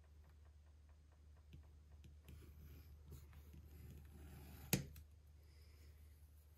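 Edge beveler shaving the edge of a leather strap, faint. Light ticks come at first, then a soft scraping stretch, and one sharp click about four and a half seconds in.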